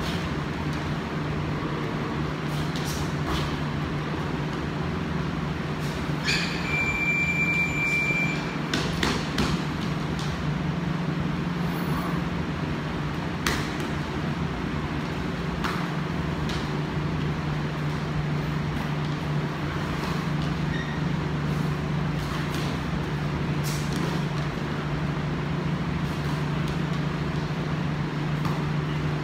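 A steady low mechanical hum with a rushing noise, with a few faint knocks scattered through and a single high tone lasting about two seconds, a little over six seconds in.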